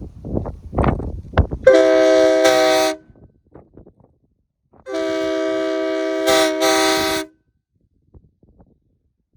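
Air-powered train horn sounding a chord of several steady notes in two blasts, a short one of about a second and then a longer one of about two and a half seconds with a brief stutter near its end. A few knocks and rustling come before the first blast.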